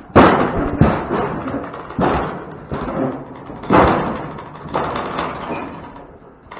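Cattle banging into the steel guardrail-panel sides of a loading alley: about six loud metal bangs and rattles over four to five seconds, the first the loudest.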